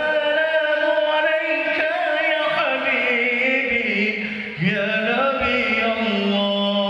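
A man's voice chanting in the melismatic style of a Middle Eastern muezzin, with long held notes decorated by quick wavering ornaments. One phrase ends about four and a half seconds in and the next begins.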